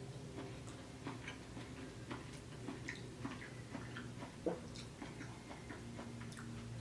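Close-up eating sounds: chewing noodles with irregular soft, wet mouth clicks and one louder click about four and a half seconds in, over a steady low hum.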